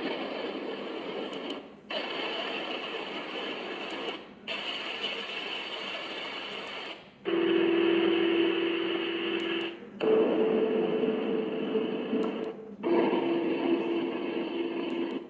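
R16 portable sound machine switching through its white-noise soundtracks, one short press at a time. Six different steady hiss and whoosh sounds play for about two to three seconds each, with a brief break between them. A few of them carry a low steady hum.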